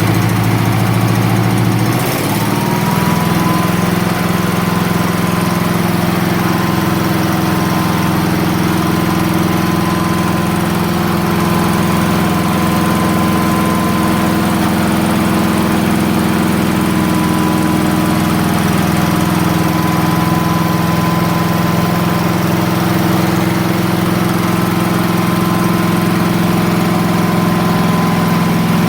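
The portable sawmill's small choked gasoline engine running just after a start. About two seconds in it speeds up and a steady high whine joins it, then it runs on evenly.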